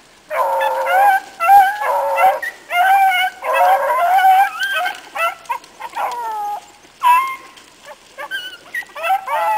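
Several bluetick hounds baying on a track, their long bawling calls overlapping. The calls thin to a few single bawls with a short lull about seven seconds in, then pick up again near the end.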